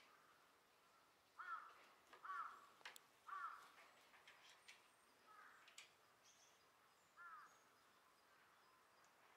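Crow cawing faintly: three short caws about a second apart, then one more a few seconds later.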